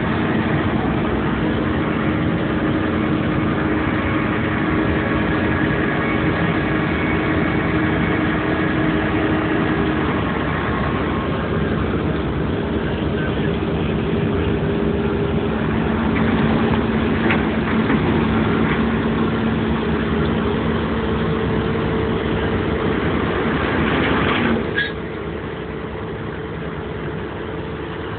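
Heavy diesel engine of a SANY crawler crane running steadily under throttle, its pitch shifting a little as the load changes. About three-quarters of the way through it drops suddenly to a quieter idle.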